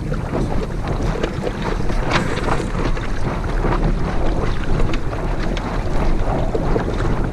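Wind buffeting the microphone over water rushing and splashing along the hull of a small sailboat under sail, a steady noise.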